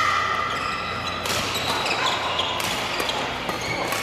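Badminton doubles rally: players' court shoes squeak on the gym floor, loudest at the start, and rackets hit the shuttlecock sharply about three times.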